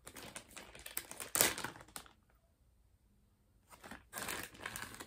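Clear plastic zip-top bag crinkling as it is handled and opened to take out a wax melt, in two spells of rustling: one lasting about two seconds, the next starting near the four-second mark.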